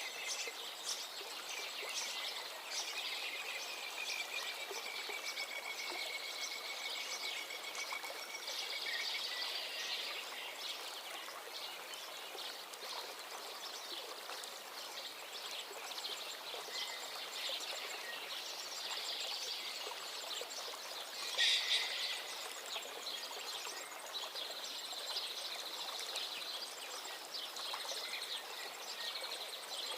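Many small birds chirping and trilling over a steady hiss like running water, with one long, slightly falling whistled call early on and a brief louder burst of calls about two-thirds of the way through.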